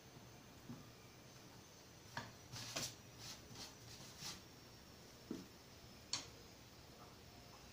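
A few light clicks, taps and short rustles as a varnished MDF box is turned over and handled on a sheet of paper, clustered in the middle seconds.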